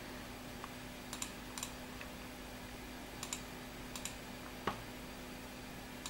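Computer mouse buttons clicking, scattered and irregular, several of them in quick double clicks, over a faint steady hum.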